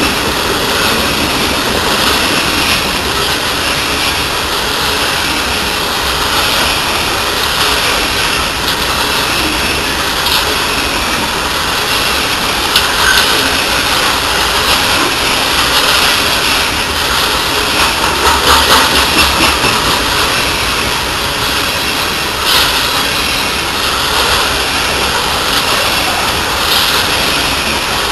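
Coal hopper cars of a long freight train rolling past: a steady roar of steel wheels on rail, with a quick run of clacks about two-thirds of the way through.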